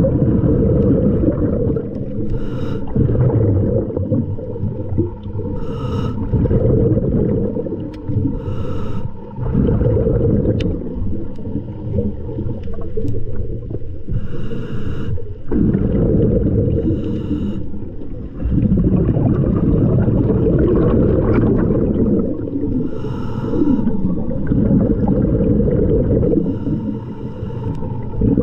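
Scuba diver breathing underwater through a regulator: a short hiss with each breath every few seconds over a constant low rumble of exhaled bubbles and water noise.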